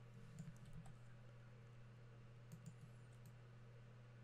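Near silence: a steady low hum with a few faint computer mouse and keyboard clicks.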